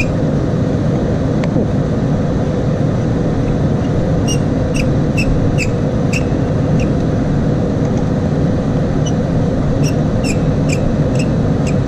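A steady, loud mechanical whir, with two short runs of light metallic clicks, about two a second, from hand tools working the clutch cover screws.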